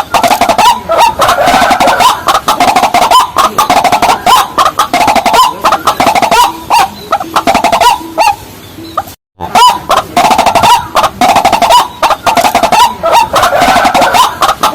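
Loud, rapidly repeated calls of rails of the waterhen kind, many overlapping notes. The sound drops briefly to nothing about nine seconds in, then the calling starts again.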